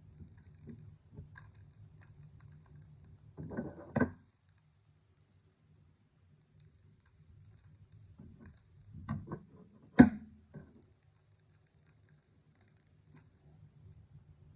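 Trading-card packs and cards being handled: faint scattered clicks and taps, a short rustle ending in a sharp click about four seconds in, and a cluster of clicks about nine to ten seconds in, the loudest a single sharp snap.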